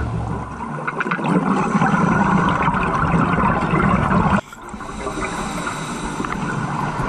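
Water gurgling and bubbling, with a fine crackle throughout. It breaks off suddenly about four seconds in and goes on more quietly.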